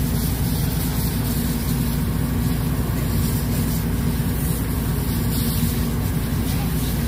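A heavy engine idling: a steady low rumble with a faint hum over it that does not change.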